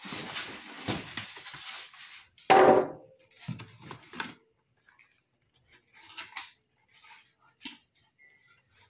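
Packaging being handled in a cardboard box: rustling of packing material and plastic wrap, with one loud brief scrape about two and a half seconds in. After that come scattered light clicks and taps as a small cardboard box is handled.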